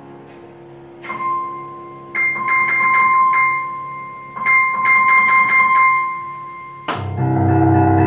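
Dexibell VIVO H3 digital piano played through its built-in speakers: a held high note with quick repeated notes on it, then a loud low chord struck near the end.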